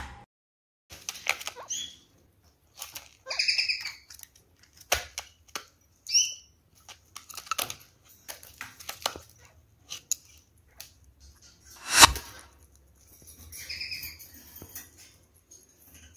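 Kakariki parakeets feeding from a plastic dish of grated carrot: scattered clicks and taps as they peck and move about, three short chirps, and one louder knock about twelve seconds in.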